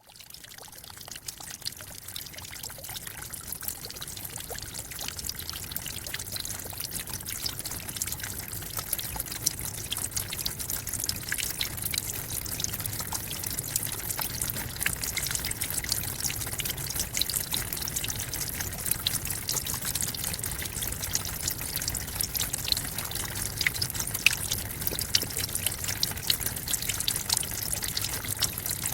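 Tropical forest waterfall: water pouring and splashing steadily, with a dense patter of small splashes over a low rumble. It fades in over the first several seconds, then holds steady.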